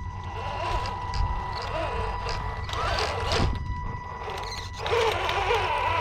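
Bwine Q111 RC crawler tank's electric drive motors and rubber tracks running with a steady high whine and a mechanical clatter. The sound eases off briefly about four seconds in and picks up again.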